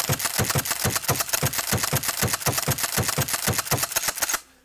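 Pump-action shotgun racked over and over, about four strokes a second, each stroke clacking the slide and ejecting a shell from the tube magazine as it is unloaded. The racking stops shortly before the end.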